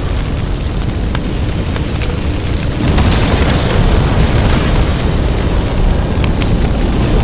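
Steel-works blast furnaces giving off a steady roar, deep and dense, growing louder and brighter about three seconds in, with a few faint sharp crackles.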